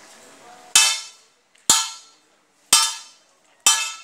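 Four metallic clangs about a second apart, each struck sharply and ringing briefly before fading.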